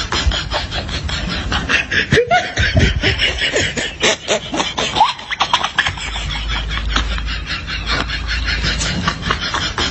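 People laughing in quick, continuous bursts of giggling and snickering, with a few short high-pitched whoops about two to five seconds in.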